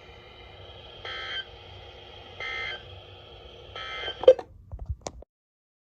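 Emergency Alert System end-of-message signal: three short bursts of data tones about 1.4 seconds apart over a faint steady hum, then a sharp click and a few smaller clicks as the audio cuts off.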